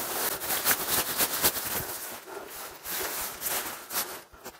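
Thin rain-fly fabric rustling and crinkling as it is swung and pulled over a pop-up tent, full of quick sharp crackles.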